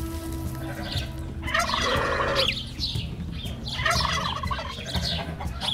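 Turkey gobbling: a rapid warbling call about two seconds in, with short higher bird calls scattered around it.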